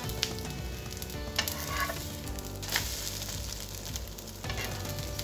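An egg-coated wrap frying egg side down in oil on a flat pan, sizzling steadily, with a metal spatula clicking against the pan three times.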